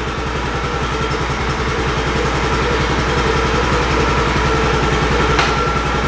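Polaris Ranger 570 SP's single-cylinder engine idling steadily, with a thin steady whine above it. A single sharp click near the end.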